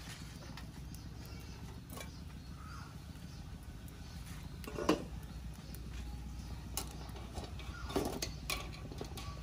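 Light metal knocks and clinks, the loudest about five seconds in, as a steel pot lid comes off and a wire skimmer works among eggs in a pot of boiling water, over a low steady rumble.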